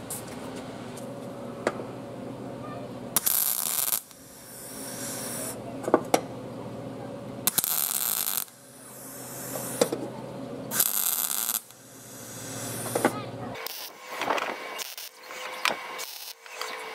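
Wire-feed welder laying short tack welds on a steel patch over the cracked engine mount of a push-mower deck: three crackling bursts of arc, each just under a second long, over a steady hum. Several shorter, sharper tacks follow near the end.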